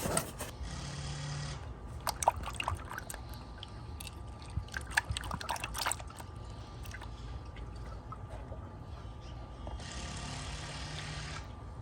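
Engine oil pouring from a plastic jug through a funnel into the engine's oil filler, with scattered light clicks and knocks.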